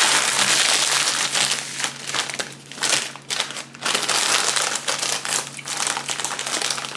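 Paper food wrapping crinkling and crumpling as it is handled, in loud irregular bursts with short pauses.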